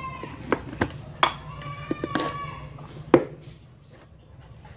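Sharp clicks and knocks of a spoon against a ceramic plate while sugar is spooned in, five in all, the loudest about three seconds in. A drawn-out high-pitched call with overtones is heard as the clicks begin, and again about two seconds in.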